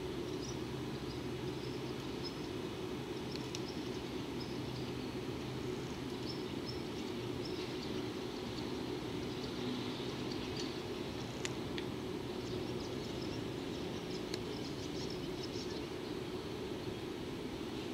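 Steady hum of a standing EF65 electric locomotive, with faint short high chirps now and then.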